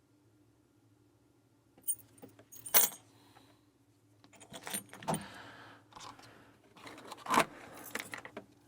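Padlock keys jangling and clinking, a string of sharp metallic clicks and jingles starting about two seconds in.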